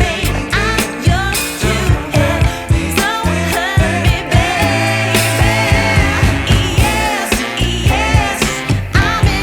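Background music: a pop song with a singing voice over a steady drum beat.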